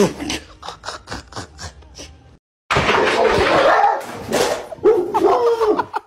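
A quick run of light taps, about five a second, then after a short break a dog vocalising noisily, with a few rising and falling calls near the end.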